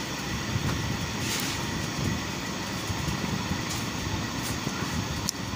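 Steady low rumbling background noise, with a couple of faint clicks.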